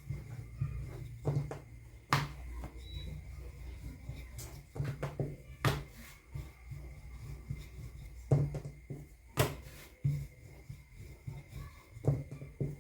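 Rolling pin working chapati dough on a rolling board, with irregular knocks and clacks as the pin and dough are turned and moved about.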